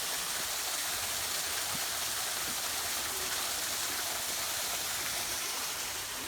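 Steady rushing of a small waterfall, about 12 to 14 feet high, pouring into a pool, with the flow swollen by several days of rain.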